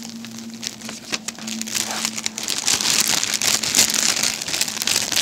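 Small plastic bags of diamond painting drills crinkling and clicking as they are handled, getting louder about halfway through.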